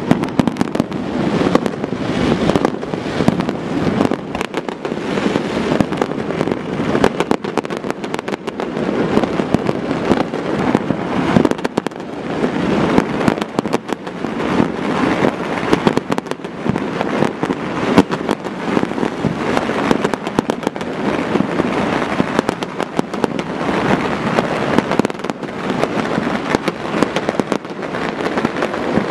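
Dense, continuous barrage of fireworks and firecrackers: countless bangs and crackling pops overlapping with no break.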